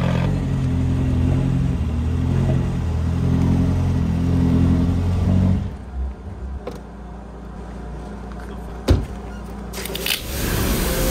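McLaren 570S twin-turbo V8 idling steadily at the exhaust just after being started. About six seconds in it gives way to a quieter low hum and a single knock, then a hiss of pressure-washer water spraying onto a wheel near the end.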